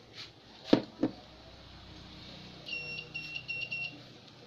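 Two sharp clicks about a second in, then a homemade continuity tester's buzzer giving a high electronic beep in about five quick pulses over roughly a second.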